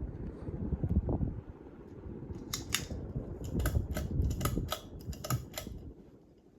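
A low rumble with a run of about ten sharp, irregular clicks over some three seconds in the middle, then the sound fades away near the end.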